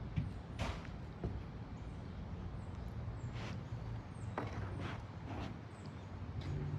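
Scattered, irregular footsteps over a low steady rumble.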